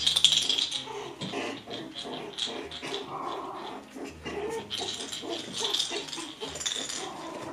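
Poodle puppies yipping and squealing in short, irregular bursts while they play-fight.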